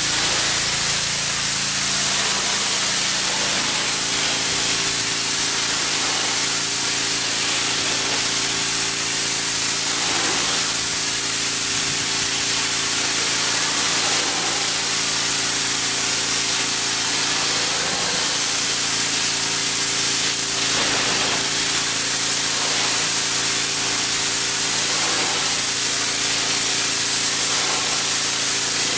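Pressure washer spraying water, a steady loud hiss over the even hum of its motor and pump.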